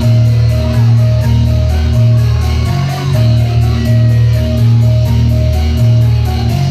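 Loud rock music with bass and electric guitar playing a short riff that repeats about once a second.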